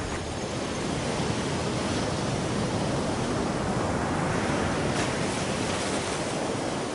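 Rough sea: large ocean waves breaking, a steady rushing surf noise that swells a little in the first second.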